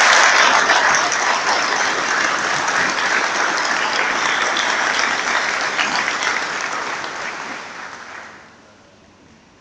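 Audience applauding, a dense crowd of clapping hands that fades away near the end.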